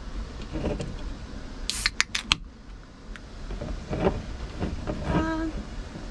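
Aluminium beer can being opened: a short hiss and a few sharp clicks close together about two seconds in. Brief murmurs of a voice follow later.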